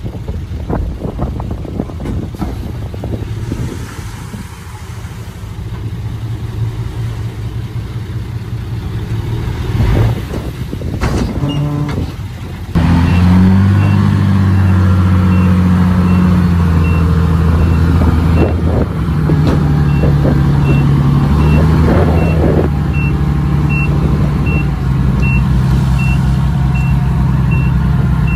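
Diesel engine of heavy earthmoving machinery running, turning much louder and heavier about halfway through as it comes under load. A reversing alarm starts beeping at the same point and keeps a steady beat of a little more than one beep a second.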